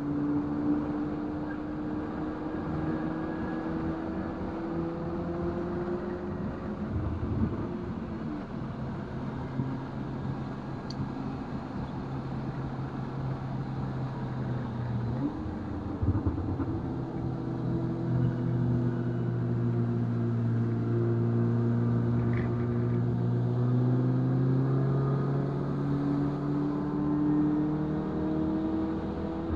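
2019 VW Golf R's Stage 2-tuned turbocharged 2.0-litre four-cylinder engine pulling under load, its note climbing slowly in pitch. About 7 and 16 seconds in, the pitch drops and then climbs again.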